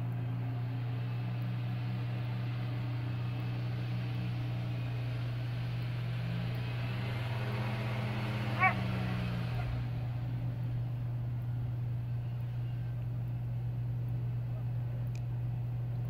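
1998 Ford Ranger 4x4's engine running steadily as the truck pushes through deep snow, its pitch rising and falling in the middle as it is given more throttle. A single short bark, the loudest sound, cuts in about eight and a half seconds in.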